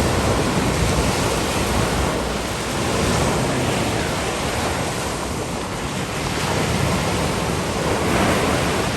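Ocean surf washing onto the beach, rising and falling gently every few seconds, with wind rumbling on the microphone.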